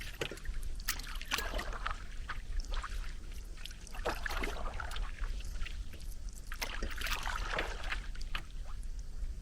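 Canoe paddle strokes in lake water: the blade dipping and pulling, with splashes and drips at irregular intervals.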